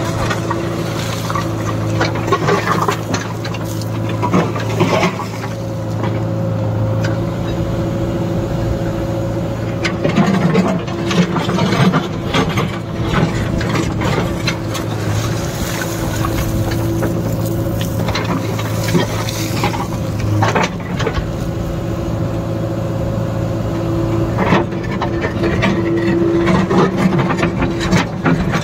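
JCB 3DX backhoe loader's four-cylinder diesel engine running steadily under the hydraulic load of the backhoe arm, with scattered clunks and rattles of stone as the bucket works a heap of broken rubble.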